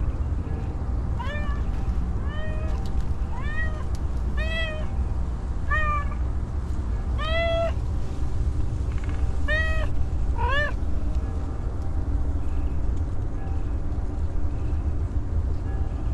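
A hungry stray tortoiseshell-tabby cat meowing repeatedly: about eight short meows, each rising then falling in pitch, over the first eleven seconds, then she falls quiet. A steady low rumble runs underneath.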